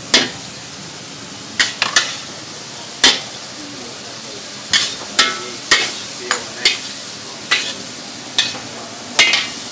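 Stir-frying: a metal spatula knocks and scrapes against a wok about a dozen times at an uneven pace, some strikes ringing briefly, over a steady frying sizzle.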